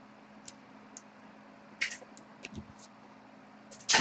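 Small handling noises on a desk: scattered light clicks and brief rustles, with a louder click near the end, over a faint steady low hum.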